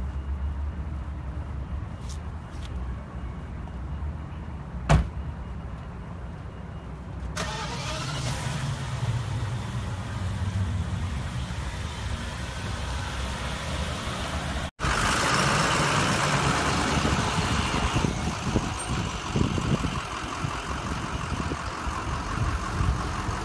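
Car sounds: over a low engine hum, the Rolls-Royce's door shuts with a single sharp thud about five seconds in. From about seven seconds a louder rush of engine and wind noise builds, breaks off suddenly about two-thirds through, and comes back louder.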